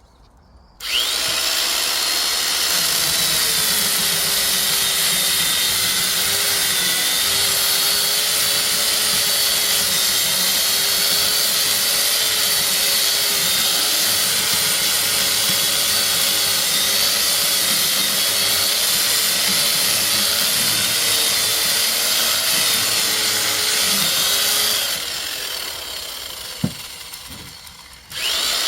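A power tool's motor switches on about a second in and runs steadily at a slightly wavering pitch, then winds down over about three seconds near the end, with a single sharp click as it slows, before starting up again.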